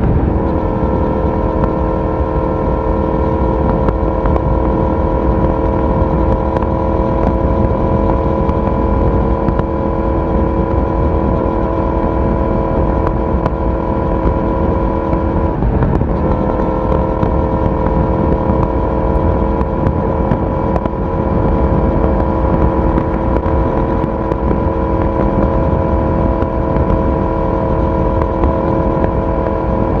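Yamaha YZF-R1's inline-four engine and exhaust cruising at steady revs. The note dips and breaks briefly about halfway through, then settles back to the same steady pitch.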